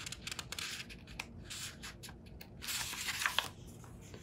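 Paper pages of a hardcover picture book being turned by hand: a few soft rustling, sliding swishes with light clicks.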